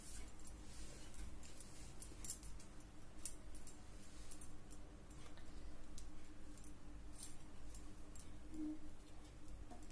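Faint scattered small clicks and rustles of a paper flower being handled, over a low steady hum.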